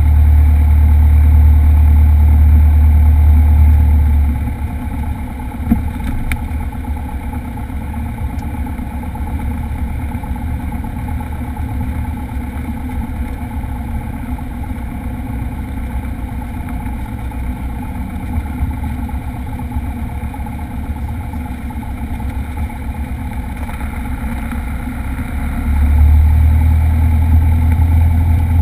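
Single-engine light aircraft's propeller engine heard from inside the cockpit while taxiing. It runs loud at first, drops to a quieter idle about four seconds in, and picks up power again near the end.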